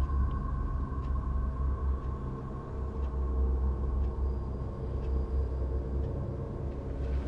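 Steady low rumble that swells and fades unevenly, with two steady high hums held above it and a few faint ticks.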